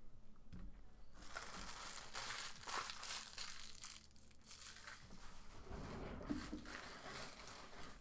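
Thin plastic crinkling and rustling in uneven handfuls, starting about a second in.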